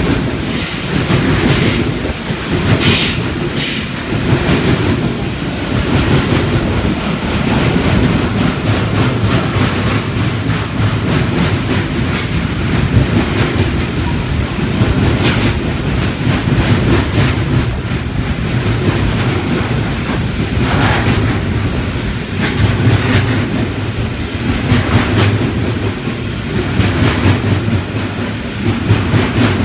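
Freight train of covered hopper wagons passing close by, with a steady loud rumble of steel wheels on rail and a clickety-clack over the rail joints. A few brief high wheel squeals cut through, the first about three seconds in.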